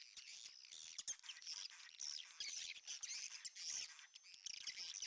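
Many edible-nest swiftlets twittering together, a dense mass of high overlapping chirps mixed with rapid clicks.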